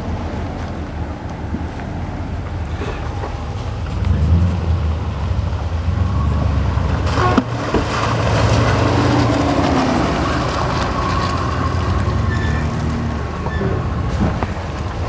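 Jeep Grand Cherokee WJ's 4.0-litre straight-six engine pulling through muddy off-road ruts. It revs up and gets louder about four seconds in and stays working hard, with a sharp knock about seven seconds in.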